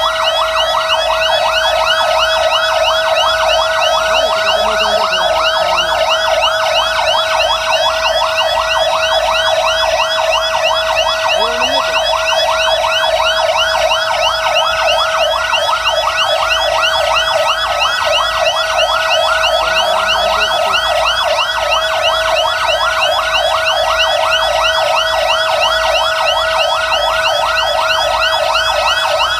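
Several fire-engine sirens sounding together without pause: a rapid yelp sweeping up and down several times a second over a steady held tone.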